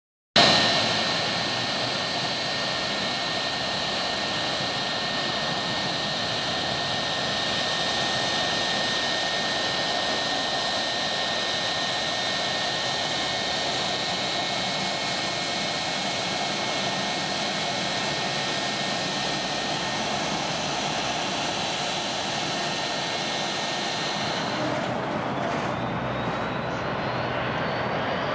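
Jet airliner engines, Pratt & Whitney PW2037 turbofans on a Boeing 757-200, running at low taxi thrust: a steady rushing jet noise with a high whine. The high whine drops out about 24 seconds in, and a faint rising tone comes in near the end.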